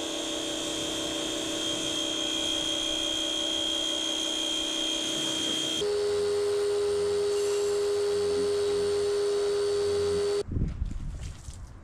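Pressure washer running with a steady whine. Its pitch shifts about six seconds in, and it shuts off suddenly near the end, followed by a few light knocks.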